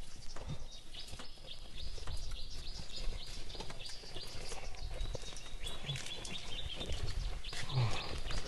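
Small birds chirping repeatedly over a low rumble.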